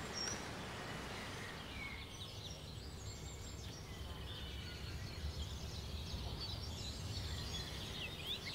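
Quiet outdoor ambience: a low steady rumble with a few faint bird chirps.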